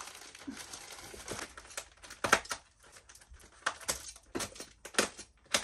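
Plastic wrapping on a bolt of fabric rustling and crinkling as it is handled, then fabric scissors cutting into cloth with several sharp snips from about two seconds in.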